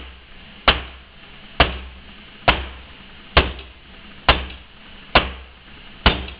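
Wooden slab soap mold filled with freshly poured cold process soap, banged down on a countertop seven times at about one knock a second. This settles the batter and knocks out trapped air bubbles.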